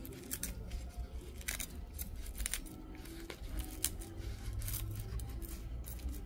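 Metal bonsai tool clicking and snipping against the bark of a jinbaek (Chinese juniper) bonsai in irregular sharp clicks, as bark is stripped from the trunk to make shari deadwood.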